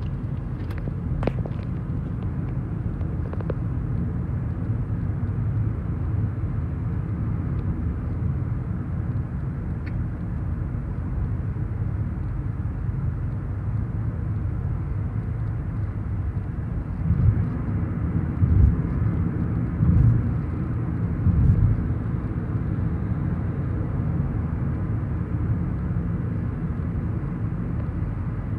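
Car cabin road noise at highway speed: a steady low rumble of tyres and engine, with a few louder low thumps between about 17 and 22 seconds in.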